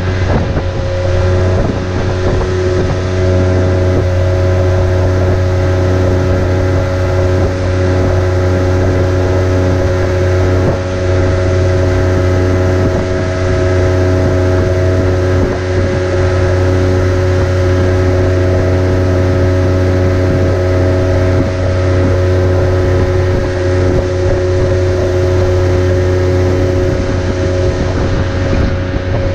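Small boat's outboard motor running steadily at speed, a loud low drone with several steady higher tones, with wind buffeting the microphone and water rushing past the hull.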